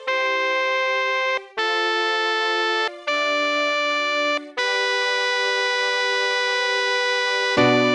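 Electronic keyboard in a synthesizer tone playing the tenor line of a choral hymn one held note at a time, each note steady and separated by short breaks. A longer note is held from about halfway in, and lower notes join near the end.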